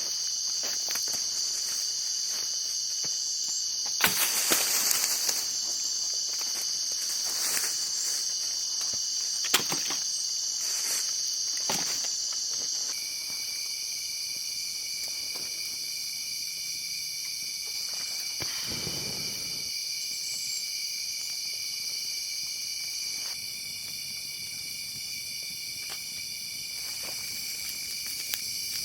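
A steady, high-pitched chorus of insects shrilling in the forest. A lower-pitched insect joins about halfway through, and there are a few brief rustles and clicks.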